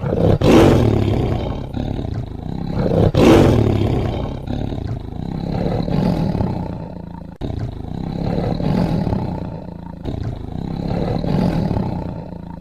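Tiger roaring: a series of deep, drawn-out roars. The two loudest come near the start and about three seconds in, and the rest repeat every couple of seconds.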